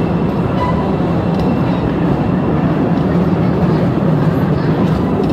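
Open-car cave tourist train running along its track: a steady, loud rumble with faint clicks.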